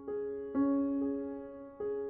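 Slow background piano music, a few sustained notes struck one after another and left to ring.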